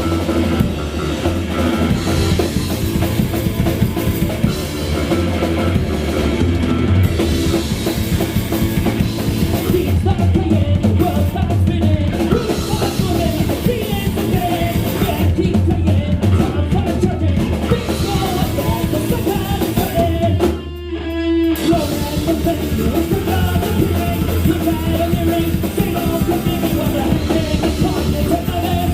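Live rock band playing a loud, driving song with drum kit prominent, and a short stop in the playing about two-thirds of the way through before the band comes back in.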